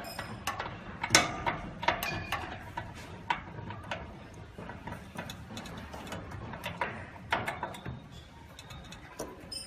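Irregular clicks and knocks of hands handling the metal fittings and mirror mount in a laser cutter's glass-tube bay, with one sharper knock about a second in.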